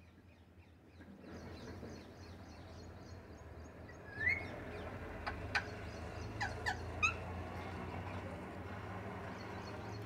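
Alexandrine parakeet giving a few short, sharp calls and chirps between about four and seven seconds in, the first the loudest, over a steady low background hum.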